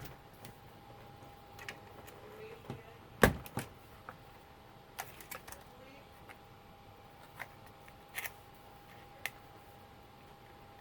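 Scattered clicks and knocks of the label machine's plastic parts being handled and pushed on, with one sharp knock about three seconds in. A faint steady high tone sits under it all.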